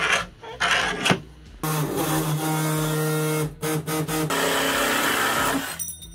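A power tool motor whirring in several short bursts, then running steadily for about four seconds, its pitch stepping up and down a few times, while the riveted snowmobile tunnel panels are being worked on.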